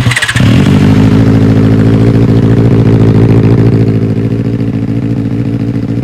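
Benelli TNT 600i inline-four motorcycle engine with an aftermarket slip-on exhaust, catching at the start and settling at once into a loud, steady idle.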